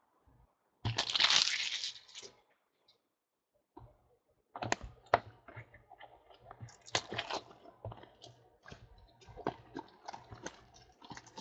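A brief tearing, rustling sound about a second in, then a run of light clicks and crinkles from about four and a half seconds on: trading cards and their packaging being opened and handled.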